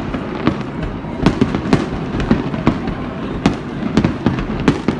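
Fireworks display: aerial shells bursting in quick, irregular succession, roughly two or three sharp bangs a second over a continuous rumble.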